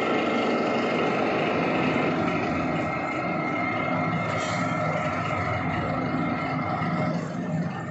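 Metal lathe running steadily during a grooving operation, with a steady whine over a continuous machining noise. One of the tones stops about seven seconds in.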